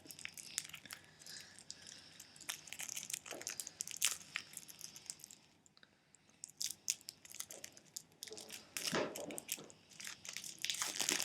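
Foil Yu-Gi-Oh booster pack wrapper crinkling and crackling as it is torn open and handled, with a brief lull about halfway through.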